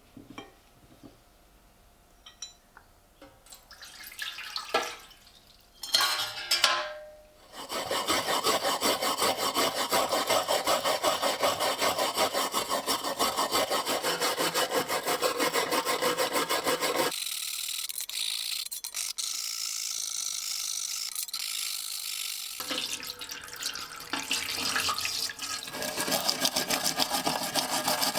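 Rapid back-and-forth abrasive rubbing worked by hand, after a few scattered handling clicks. About two-thirds through, the lower, fuller part of the rubbing drops away for several seconds, leaving a thinner, higher scratching, and then the full rubbing comes back.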